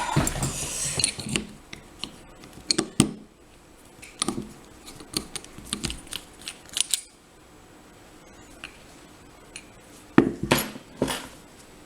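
Scattered small metal clicks and clinks of a screwdriver and a Kryptonite lock being handled as the screwdriver is worked at the lock's screw to take it apart. The handling noise is busiest near the start and again near the end, with a quieter stretch before it.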